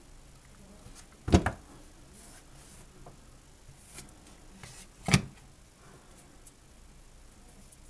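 Two sharp clicks, about four seconds apart, with a few faint ticks between them: small hand work with tools and wire.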